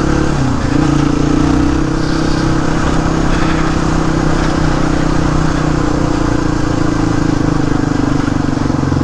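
Suzuki DR250S single-cylinder four-stroke engine running through a Dominator aftermarket exhaust while the bike is ridden, with a brief drop in revs just after the start, then holding steady.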